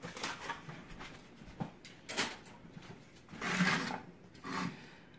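Soft handling noises: a few brief rustles and light knocks around a metal roasting pan on a wooden board, with one sharp little click.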